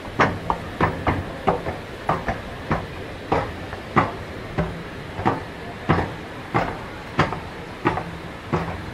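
Outdoor street escalator running: a low motor hum under a regular clack about every 0.6 seconds.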